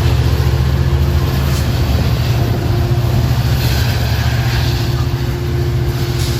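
Metra commuter train's diesel locomotive running steadily at close range: a deep, even engine rumble.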